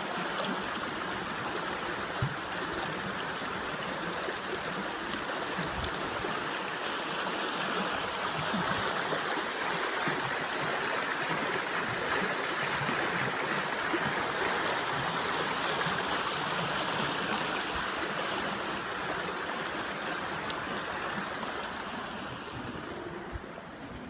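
Floodwater in a swollen creek rushing steadily, a continuous hiss of fast-flowing water that eases off slightly near the end.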